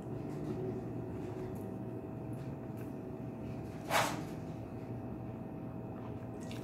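Eating with bare hands: soft handling of rice and fried food with the fingers and faint chewing, with one short sharp smack about four seconds in, over a steady low hum.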